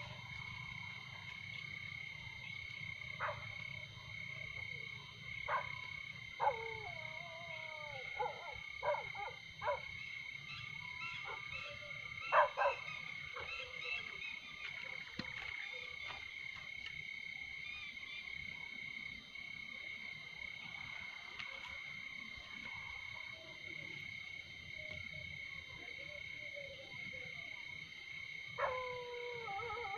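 Night countryside ambience: a steady high trilling of insects, with scattered short barks and yelps from distant dogs, the loudest about twelve seconds in and a longer drawn-out call near the end.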